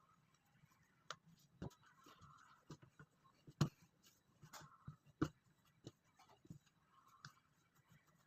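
Scattered light knocks and clicks of kitchen work, about one a second at irregular spacing, with one sharper knock in the middle.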